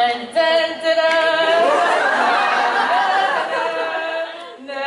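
Unaccompanied singing: a voice holds long, high notes, then goes on in a busier mix of voices.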